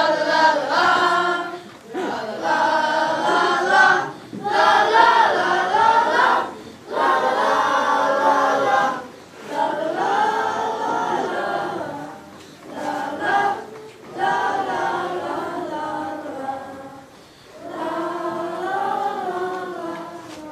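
A group of young voices singing together in short phrases, with brief pauses between lines.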